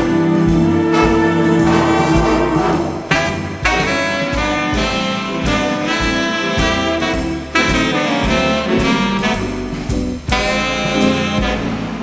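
Instrumental break of a slowed-down jazz arrangement of a song, with no vocals: the band plays sustained notes over a steady beat.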